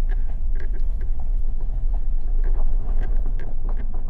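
Vehicle driving on a rough back-country road, heard from inside the cabin: a steady low rumble with scattered small clicks and rattles.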